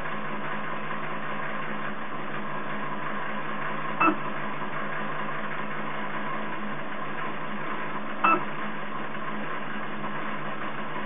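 Hanna HI902C automatic titrator running a total acidity titration: a steady machine hum from the stirrer and pump, with a brief whirr about 4 s in and again about 8 s in as the burette pump doses titrant in small steps.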